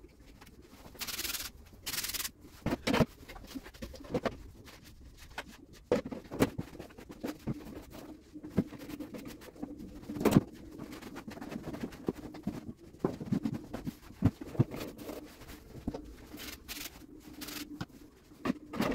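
Plastic bottles knocked and set down on a metal mesh trolley shelf while it is wiped with a cloth: scattered clunks and clicks, with two short hisses about one and two seconds in. A faint low wavering tone runs underneath.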